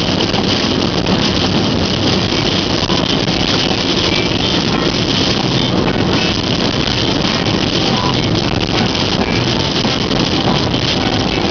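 Heavy rain pelting a car's windshield and roof, heard from inside the car as a loud, steady, dense hiss.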